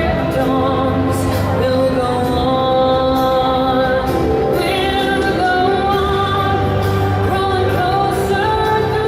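The fireworks show's soundtrack: sustained, swelling music with sung vocals, a woman's voice over a choir.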